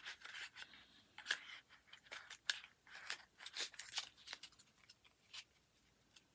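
Packaging crinkling and clicking as it is handled and opened: a quick run of small sharp crackles that dies away about five and a half seconds in.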